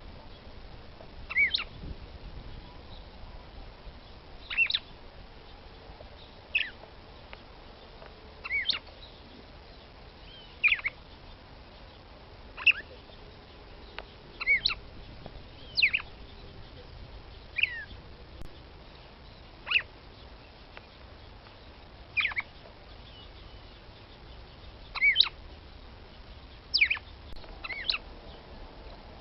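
Female red-cowled cardinal (Paroaria dominicana) giving short, sharp calls, each a quick falling note, roughly one every two seconds, some of them doubled. It is the female's call used to stir a male into song.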